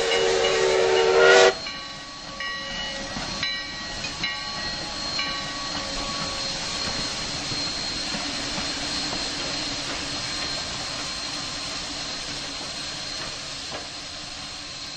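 Steam locomotive sound dubbed over a model train: a steam whistle blowing and cutting off about a second and a half in, a few short ringing strikes over the next few seconds, then a steady hiss of escaping steam.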